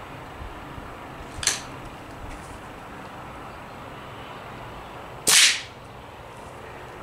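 Two sharp reports of an air rifle shooting at a helmet target: a lighter crack about a second and a half in, and a much louder, fuller shot about five seconds in.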